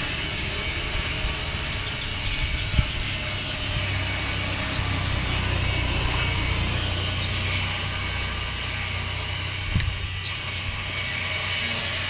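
Steady low mechanical hum with hiss, broken by two sharp knocks, about three seconds and ten seconds in.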